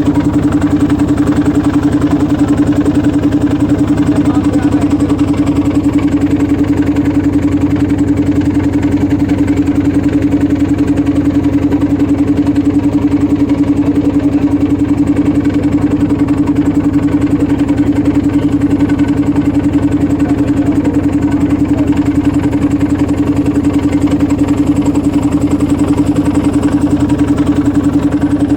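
Boat engine running steadily at a constant speed, with a strong steady hum and rapid even pulsing.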